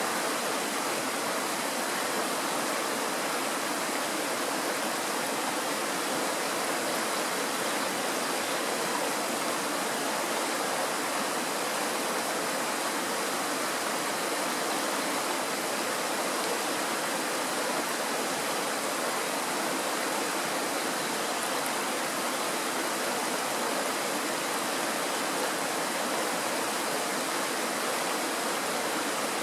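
Shallow mountain stream rushing and splashing over a stony bed in small riffles: a steady, even rush of water with no breaks.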